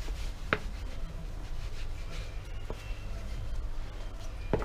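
A tissue rubbing across a phone's glass screen as it is wiped clean, with three light clicks, over a steady low hum.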